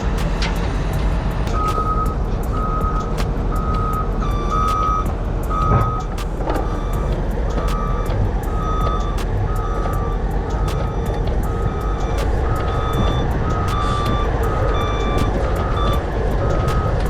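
A vehicle's reversing alarm beeping at an even pace, roughly three beeps every two seconds, starting about a second and a half in, over the steady rumble of heavy vehicle engines. A second, higher-pitched backup beeper joins partway through, and there are scattered clicks and knocks.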